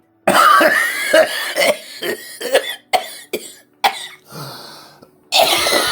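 A person's wet, productive cough: a fit of repeated coughs, a drawn breath about four seconds in, then coughing again near the end. This is the cough typical of pulmonary tuberculosis with breakdown of lung tissue: it sounds wet with sputum, much like a smoker's cough.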